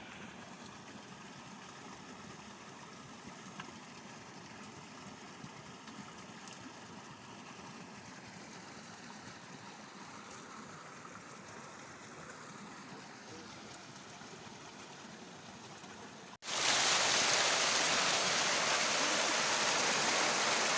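Flowing stream water, faint and steady; after a sudden cut about four seconds before the end it becomes a much louder, even rushing of water.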